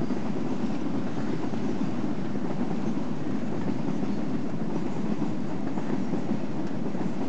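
Freight train of tank wagons rolling past on the track, its wheels on the rails making a steady, even rumble.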